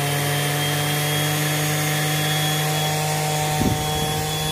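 Bosch Professional random orbital sander running freely in the hand with no load, a steady motor hum and whine at full speed just after being switched on. A brief knock about three and a half seconds in.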